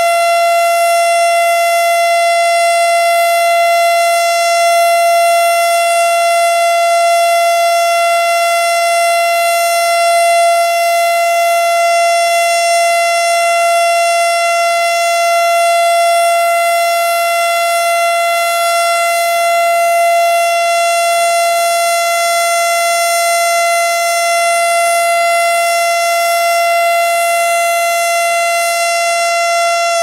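Federal Signal STH-10 outdoor warning siren sounding its steady alert signal: one loud, high tone held at a level pitch, just starting to wind down in pitch at the very end.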